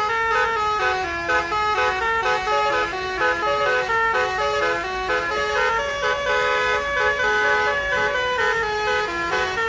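Bus's basuri musical horn playing a 'telolet' melody: a quick run of short stepped notes, one after another without pause.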